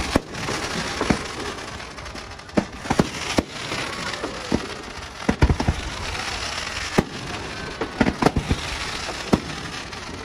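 Fireworks going off overhead: sharp bangs at irregular intervals, roughly one a second, bunched in quick pairs and triples around the middle and near the end, with a steady hiss between the bangs.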